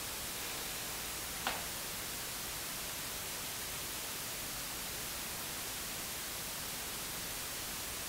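Steady hiss of room tone and recording noise during a silent prayer, with one brief faint knock about a second and a half in.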